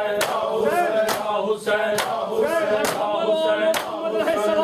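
Men chanting "Hussain" together in a loud unison chant. Bare-handed chest-beating (matam) comes in unison on the beat, a sharp slap a little under once a second.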